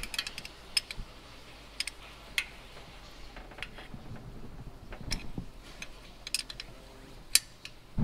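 Open-end wrench on an exhaust header bolt, giving scattered light metal clicks and ticks as it slips and catches on the bolt head, with a sharper click near the end.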